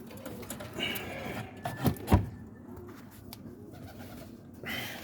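Roller pigeons cooing in the loft, low and wavering, with two sharp knocks close together about two seconds in.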